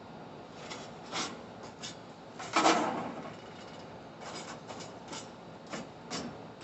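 Lit charcoal being emptied from a chimney starter into a grill: a handful of short knocks and scrapes, with one louder clatter of coals about two and a half seconds in.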